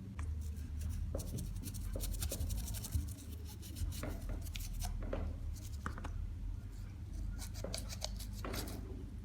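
Scratchy rubbing and irregular light clicks and scrapes of hand work on a small nitro model engine during cleaning, over a steady low hum.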